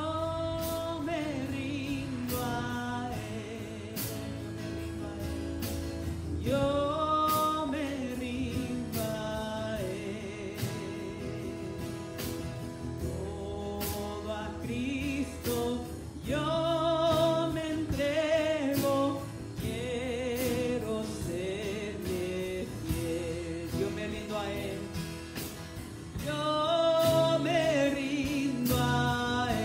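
Live worship band playing a song: a woman singing lead over two acoustic guitars and a drum kit keeping a steady beat.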